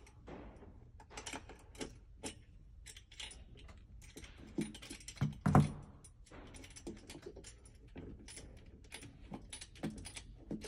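A wrench and the steel hardware under a stool seat being worked loose by hand: a string of irregular small metal clicks and rattles, with one louder knock about five and a half seconds in.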